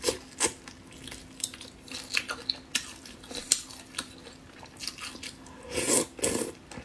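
Close-up eating of cooked shrimp: a run of short, crisp crunching clicks from biting and chewing, with a louder bite near the end.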